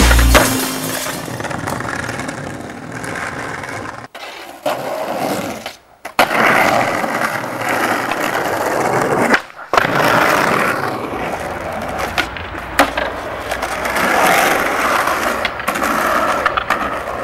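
Skateboard wheels rolling on concrete, with sharp clacks of the board popping and landing tricks, across several short clips cut together.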